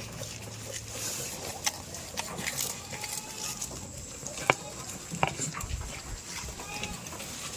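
Animal sounds mixed with scattered sharp clicks and knocks; the loudest knock comes about four and a half seconds in.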